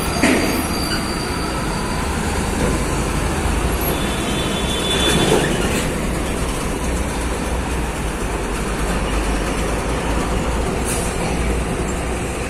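Heavy diesel tractor-trailer trucks passing close by, one pulling an empty flatbed trailer and then a container trailer, with steady engine rumble and tyre noise. A brief high squeal comes about four seconds in.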